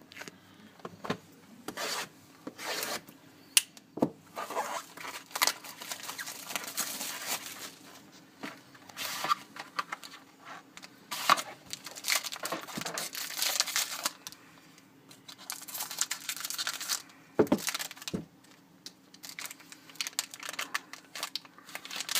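Plastic wrap and cardboard packaging of a sealed trading card box being torn open and handled: irregular crinkling and tearing, with scattered sharp clicks and short pauses.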